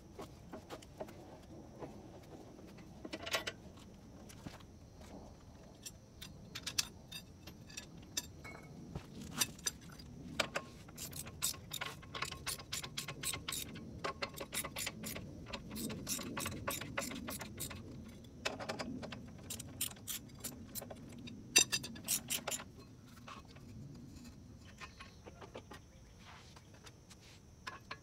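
Metal hand tools working on a car's front wheel hub: runs of sharp metallic clicks and clinks, bunched through the middle, over a low rumble.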